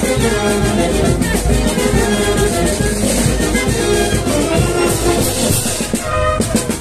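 Procession brass band playing a tune, brass melody carried over steady drum beats.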